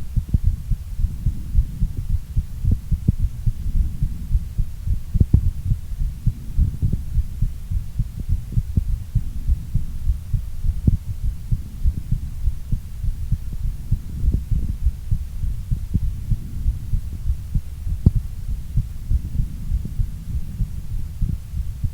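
Human heartbeat recorded close up, a rapid even thumping of about two beats a second over a continuous low rumble: a heart rate still raised in recovery after a workout.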